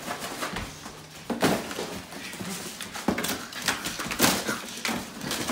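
A cardboard box being carried and jostled, with a few irregular knocks and scrapes of cardboard.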